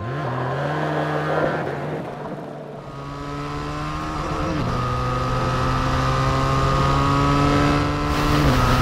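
Benelli Leoncino 500's parallel-twin engine running under way, with a quick rise in pitch at the start. Its note climbs slowly as it accelerates, drops about four and a half seconds in, then climbs again and falls off near the end.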